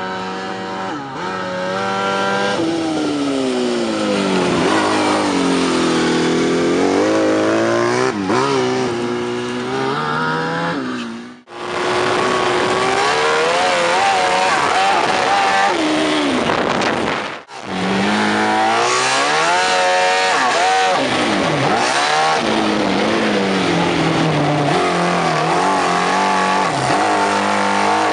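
Yamaha Rhino side-by-side fitted with a Yamaha R1 superbike's inline-four engine, revving hard, its pitch repeatedly climbing and falling as it is driven. The sound breaks off sharply twice, around a third and two thirds of the way through, and picks straight up again.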